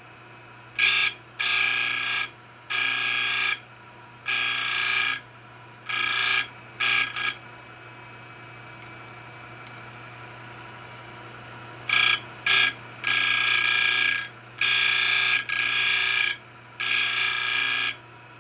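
Saw-chain cutter being ground from round to square grind: the grinding wheel meets the cutter's side plate in short, high-pitched screeching passes, each up to about a second long, with a pause of some four seconds midway. A steady low hum runs underneath.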